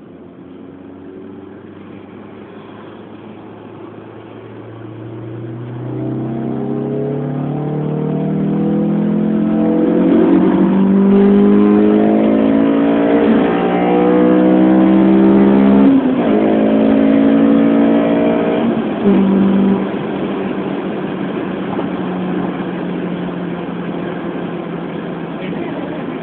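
Honda S2000's four-cylinder engine, fitted with a K&N air filter and a home-built exhaust, accelerating hard through the gears. The engine note climbs from about five seconds in and drops back at each of several upshifts, then settles into a steady cruise for the last few seconds.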